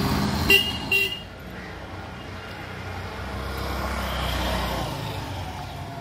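Two short vehicle horn toots about half a second apart near the start, over the engine of a passing motorcycle. A low engine hum from street traffic swells and fades after them.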